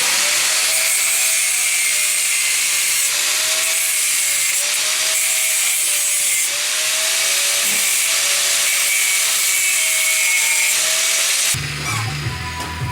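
Angle grinder cleaning up steel: a steady grinding hiss, with the motor's whine wavering as the disc bears on the metal. It stops near the end, and music comes in.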